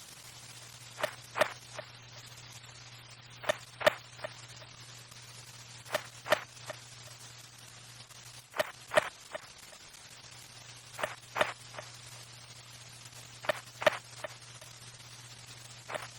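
Location homing beacon sound effect: pairs of short, sharp electronic pulses, each pair followed by a fainter third pulse, repeating about every two and a half seconds over a steady low hum.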